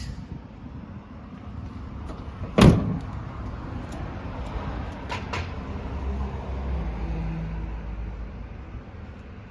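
A pickup truck's door shut with one loud thud about two and a half seconds in, followed by two light clicks a few seconds later.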